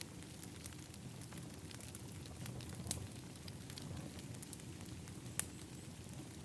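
Wood fire in an outdoor fire pit crackling, with scattered sharp pops, two louder ones about three and five and a half seconds in, over a low steady rumble.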